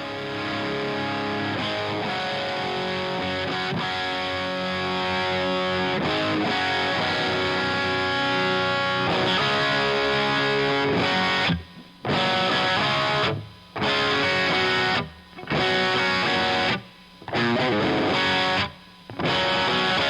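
Electric guitar with distortion, played through an Omega Series Micro amplifier with a Greenback cabinet impulse and reverb. Held chords ring for the first half, then choppy chord stabs are cut by short silences about every two seconds.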